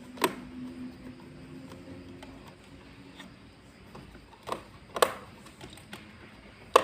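A few sharp plastic clicks and knocks, one near the start, two close together past the middle and one near the end, from handling a toy RC bulldozer and its parts.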